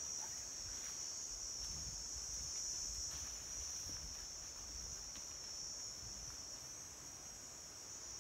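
Steady high-pitched drone of forest insects, crickets or cicadas, with low rumbling underneath through the middle.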